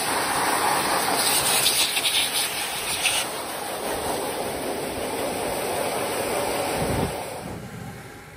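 Pet hair dryer blowing a steady rush of air onto a wet long-haired cat's coat, harsher and hissier for a couple of seconds near the start. The blowing dies away about a second before the end.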